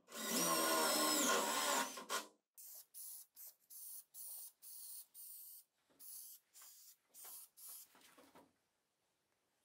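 A cordless drill runs for about two seconds, boring into plywood, its motor whine shifting in pitch. Then an aerosol spray can hisses in a string of short bursts, about ten over the next six seconds.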